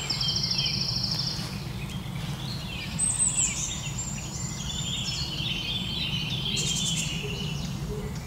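Several songbirds singing in a spring woodland: overlapping chirps, a rapid trill near the start and varied phrases throughout, over a steady low rumble of outdoor ambience.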